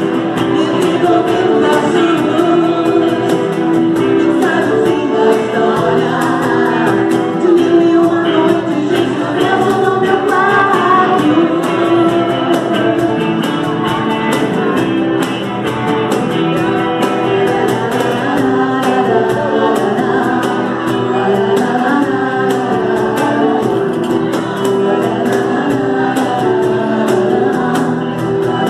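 Live band playing a Brazilian pop-rock song, with a woman singing lead and a man joining on a second microphone. An electric guitar and a steady beat run underneath.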